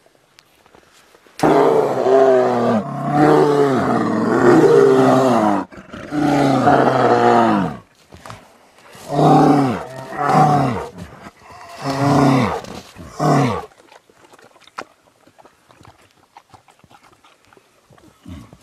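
A large animal roaring in a bout: one long roar of about four seconds, a shorter one, then four short roars in quick succession, each falling in pitch.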